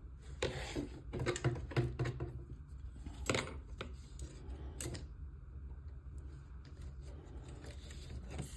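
Small model-kit parts and screws being handled and fitted by hand: light rattling and rustling with a few sharp clicks, over a low steady hum.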